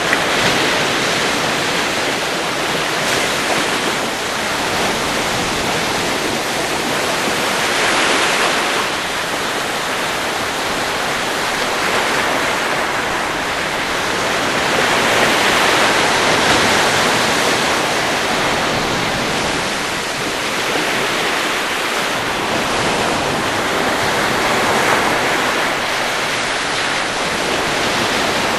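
Steady rushing noise with no distinct tones or impacts, swelling and easing in slow waves every seven or eight seconds.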